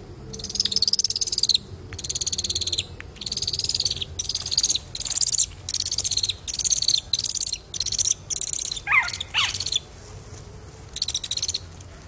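Young owl chick giving a series of about a dozen harsh, buzzy, rasping calls, each well under a second to about a second long, with two lower, falling notes near the nine-second mark.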